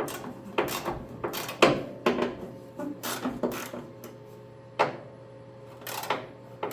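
Irregular metallic clicks and clanks of a hand wrench working the hood hinge bolts on a 1968 Mustang, the bolts being loosened by hand rather than with an impact gun.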